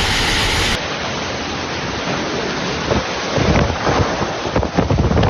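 Steady rushing noise of heavy rain and water. From about halfway through, gusts of wind buffet the microphone in uneven low bursts.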